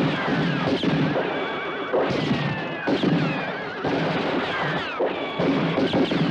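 Several horses whinnying again and again, each call falling in pitch, over a busy clatter of hooves and movement.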